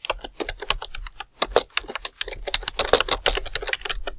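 Computer keyboard being typed on quickly: a steady, rapid run of key clicks, several a second.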